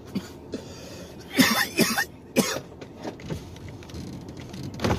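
A man coughing hard several times in a row, starting about a second and a half in, with a few smaller coughs after, from inhaling smoke.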